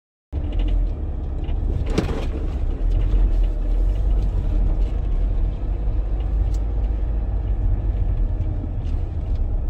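Car rolling slowly, heard from inside the cabin: a steady low rumble of engine and tyres on a rough gravel surface, with a single sharp knock about two seconds in.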